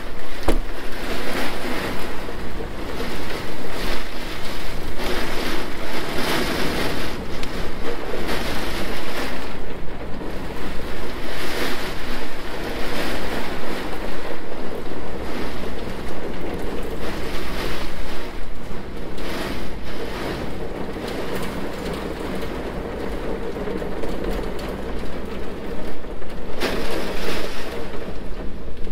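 Rain storm: a steady rush of wind and rain that swells and eases in gusts, with wind rumbling on the phone's microphone.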